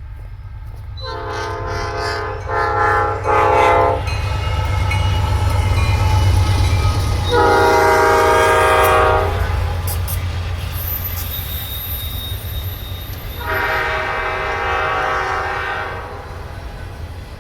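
Diesel freight locomotive's air horn sounding three long blasts, the first briefly broken, over the deep rumble of the locomotive's diesel engine as the train passes.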